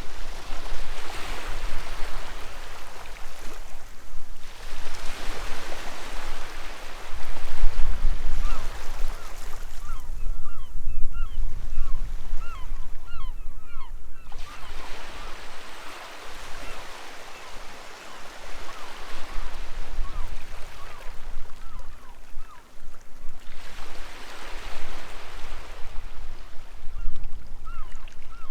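Sea waves washing onto the beach in slow surges a few seconds apart, with gulls calling repeatedly throughout, the calls standing out most in the lull between surges partway through.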